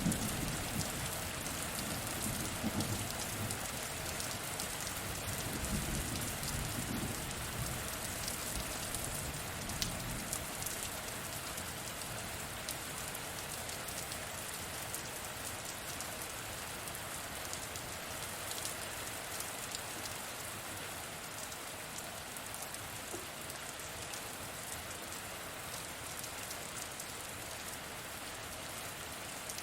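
Steady rain falling, an even hiss with scattered drop ticks. A low rumble of thunder fades away over the first several seconds.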